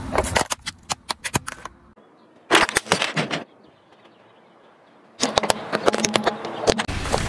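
Car tyre crushing toys: a plastic Darth Vader helmet cracking and snapping in quick runs of sharp clicks, then after a quiet pause the tyre rolling onto crumbly ice-cream-cone toys, crunching and crackling densely near the end.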